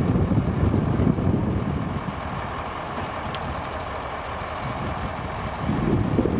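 Fire-brigade crane truck's engine running to drive its hydraulic loader crane, mixed with wind buffeting the microphone. The low rumble eases off about two seconds in and picks up again near the end.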